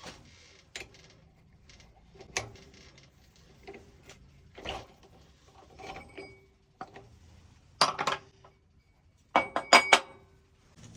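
Small metal parts clinking and knocking together as they are handled, a dozen or so separate taps, some ringing briefly. The loudest come in a quick cluster about eight seconds in and a rapid run of four or five near the end.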